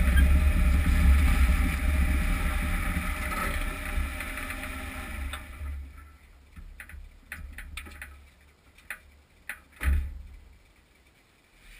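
Driving noise of a UAZ Patriot heard from under its front wheel arch: a steady low rumble of tyres and drivetrain that fades as the vehicle rolls to a stop about five or six seconds in. After that come scattered light clicks and knocks, and a single thump near the end.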